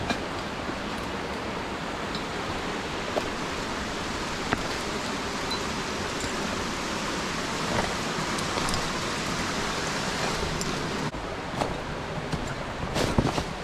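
Steady rushing hiss of water in a mountain stream, with a few sharp knocks near the end. The hiss changes abruptly about eleven seconds in.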